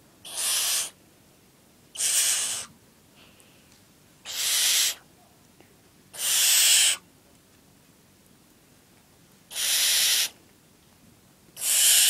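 Barn owl chick's rasping hiss-screeches, six in a row, each well under a second long and about two seconds apart, the last running on past the end. These are the young owl's food-begging calls as it is fed.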